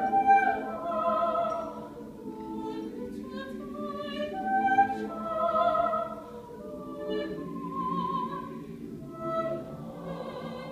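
Mixed choir of men's and women's voices singing, held chords moving from note to note in swelling phrases.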